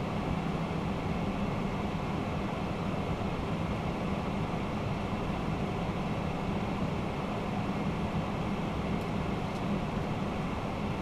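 Steady flight-deck noise of a Boeing 767-300ER: an even rush of airflow with a constant low hum, no changes.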